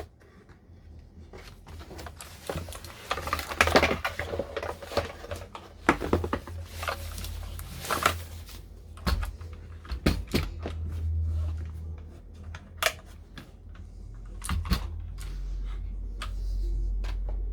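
Marvo Scorpion KG901 mechanical keyboard with clicky blue switches being typed on: a fast, dense run of key clicks for several seconds, then slower single keystrokes, over a low rumble.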